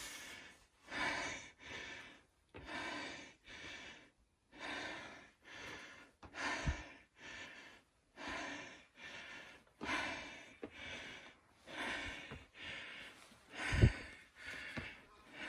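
A person panting heavily from exertion, rapid breaths in and out about once a second. There is a dull thump about seven seconds in and a louder one near the end.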